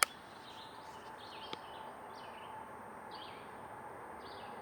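Small birds chirping in short repeated calls over faint outdoor background noise, with one sharp click right at the start.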